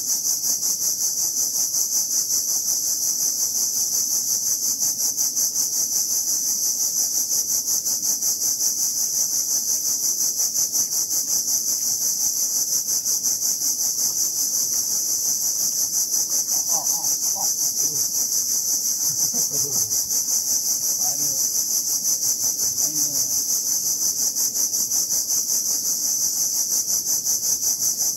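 Cicadas droning in the trees: a steady, high-pitched shrill pulsing several times a second without letup. Faint low voices are heard about midway.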